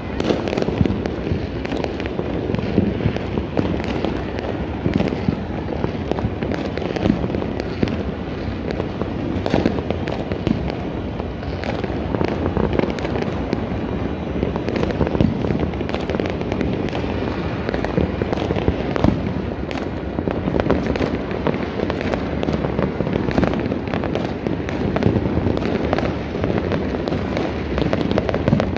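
Fireworks and firecrackers going off nonstop in a dense barrage: a continuous crackle with many sharp bangs scattered all through it, never letting up.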